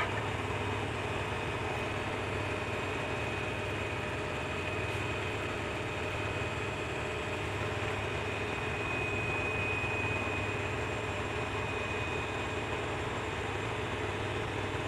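Steady mechanical hum and hiss from a running appliance motor, with a thin high-pitched whine held throughout; a short sharp knock right at the start.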